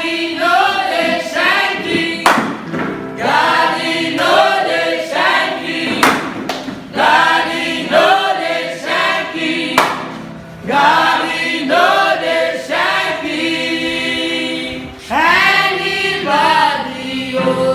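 Gospel choir singing, with three sharp percussive hits a little under four seconds apart.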